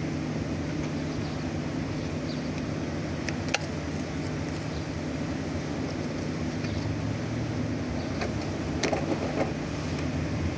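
Steady low mechanical hum, like a motor running in the background, with a few light clicks.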